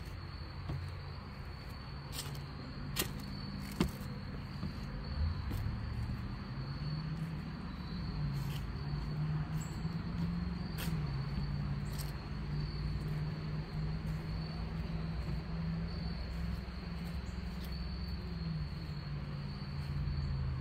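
Indoor room ambience: a steady low hum with a constant thin high-pitched whine, and scattered sharp clicks and taps.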